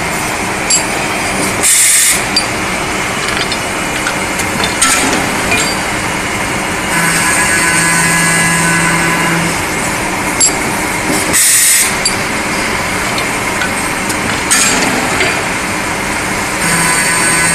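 Automatic circular-saw cutting and chamfering machine running through its cutting cycle on metal bar stock: a steady machine hum, with a humming tone that comes in for a couple of seconds in the middle and again near the end. Two short loud hisses, about two seconds in and again at about eleven seconds, and a few light clicks in between.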